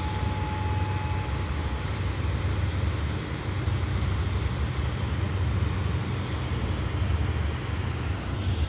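Outdoor warning siren's steady tone, faint and distant, fading out about a second and a half in as the test ends. Under it runs a steady low rumble of outdoor background noise.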